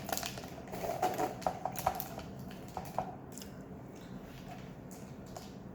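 Small clicks and soft rustles of a fast-food meal being handled and eaten, mostly in the first three seconds, then only faint room tone.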